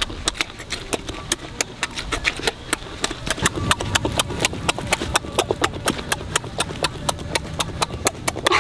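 A person eating raw cucumber and shrimp salad close to the microphone: loud chewing and smacking, a rapid run of wet clicks about five a second.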